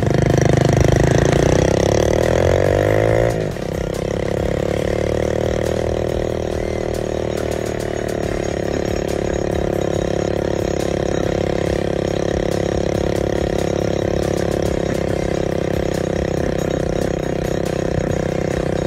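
Vehicle engine rising in pitch under throttle for about three seconds, then dropping suddenly and running at a steady pitch.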